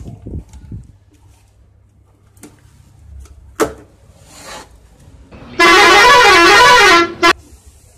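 A vehicle horn sounds loudly for about a second and a half with a wavering pitch, then gives a short toot. Before it come a sharp snap and a brief rustle of cardboard box flaps being opened.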